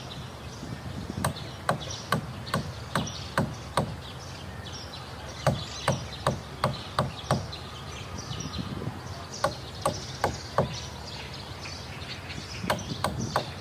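Hammer blows on the wooden planking of a boat hull under construction, in four runs of quick strikes, about two or three a second, with short pauses between. Birds chirp in the background.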